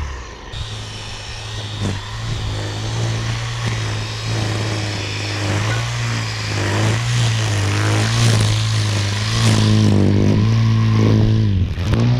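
EGO 56V battery power head running with a trimming or edging attachment under load. Its motor hum holds steady but sags and recovers now and then as it cuts, over a rough cutting noise.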